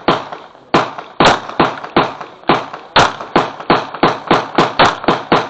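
Staccato XC pistol firing a rapid string of about nineteen shots. The first few come roughly half a second apart, then the pace quickens to about four shots a second. Each shot is a sharp crack with a short ring-off.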